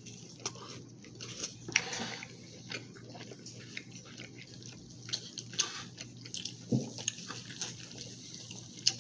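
Steel knife and fork cutting a steak on a ceramic plate: scattered light clicks and scrapes of metal on the plate, at an uneven pace.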